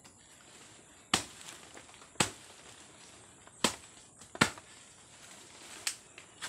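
Machete blade chopping into an abaca stalk near its base: five sharp chops over about five seconds, the last one fainter.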